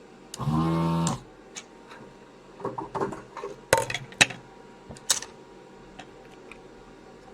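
ZD-915 desoldering station's vacuum pump running for just under a second as a steady buzz, sucking solder out of a blocked through-hole. Then a run of small clicks and taps, strongest a little after halfway, as tools touch the circuit board.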